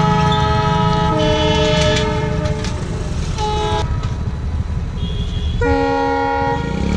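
Music of long held notes that shift in pitch every second or so, over a low rumble.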